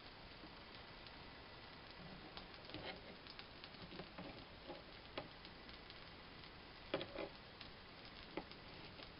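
Kitchen knife dicing Spam on a plastic cutting board: faint, irregular taps and clicks of the blade meeting the board, with a louder double click near the end.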